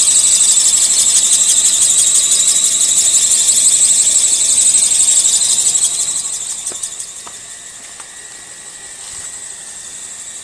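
Toyota Vios engine belt squealing: a loud, high-pitched shriek with a rapid flutter. It fades to a much fainter squeal about six seconds in. This is an abnormal belt noise at its worst and loudest.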